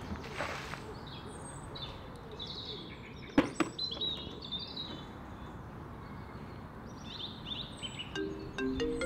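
Small birds chirping and twittering over steady outdoor ambience. About three and a half seconds in comes a sharp knock, as a plastic bucket is set down on the ground. Near the end a melody of short stepped notes begins.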